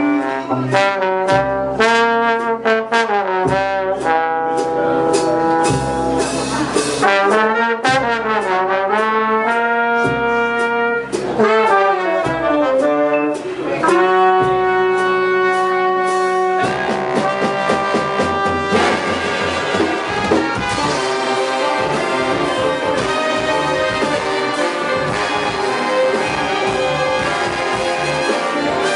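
An ensemble playing an instrumental piece: sustained melody notes with sliding pitch glides over a beat, the sound growing denser and fuller about two-thirds of the way in.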